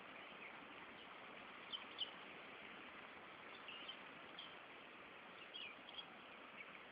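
Faint, short, high bird chirps, scattered about once a second and loudest about two seconds in, over a steady hiss.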